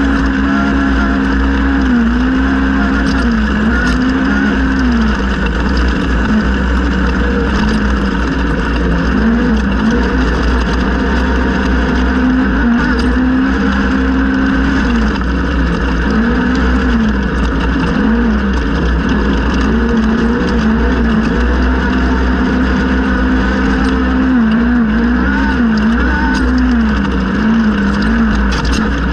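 Polaris RZR XP 1000 race UTV's naturally aspirated twin-cylinder engine running hard, its pitch holding high and then dipping and climbing back again and again as the throttle comes off and on. A constant low rumble runs underneath.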